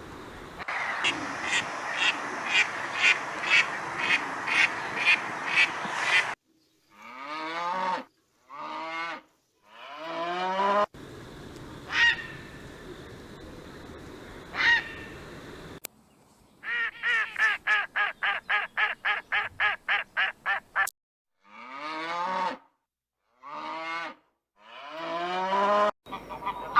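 Waterfowl calling in several short cut-together clips. First a steady run of about two quacks a second, then longer calls that fall in pitch, two single calls, and a fast run of about four calls a second.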